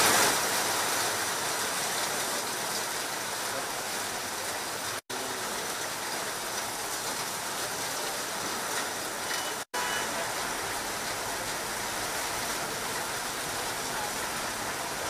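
Heavy monsoon rain pouring down in a steady hiss, cutting out for an instant twice.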